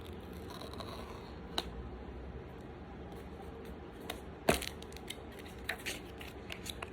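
Small cardboard product box being handled and opened: a few scattered clicks and taps, the loudest about four and a half seconds in, with a quick cluster of lighter ones near the end.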